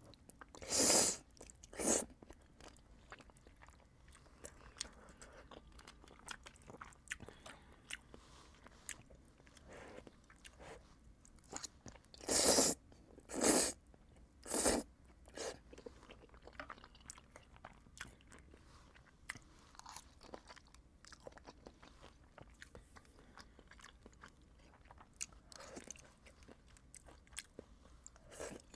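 Close-miked eating of Buldak spicy noodles: steady chewing with small wet mouth clicks, broken by five louder bursts, two about a second in and a cluster of three around the middle.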